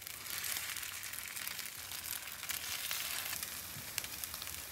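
Butter-coated French toast sticks frying on a flat-top griddle: a steady sizzle flecked with small crackling pops.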